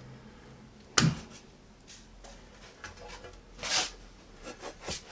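Suction-cup tabs on a stainless-steel tile hole saw guide being released and the guide lifted off a porcelain tile. A sharp click comes about a second in, then a short scuff a little past the middle, with a few soft handling knocks.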